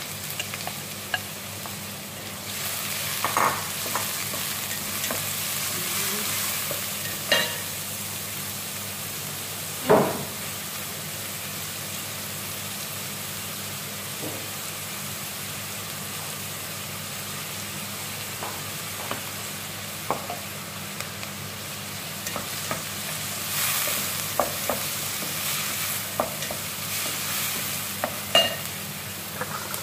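Chopped onion sizzling in hot oil in an aluminium pan, stirred with a wooden spatula. The spatula scrapes and knocks against the pan now and then, with the sharpest knock about ten seconds in.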